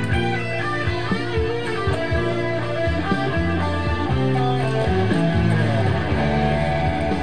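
Electric guitar playing a run of quickly changing single notes over a low, steady bass line.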